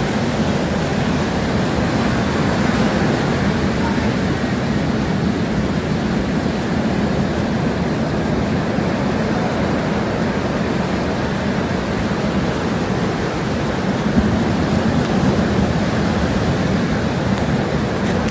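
Hurricane wind and rain: a steady, loud rushing noise that swells briefly about fourteen seconds in.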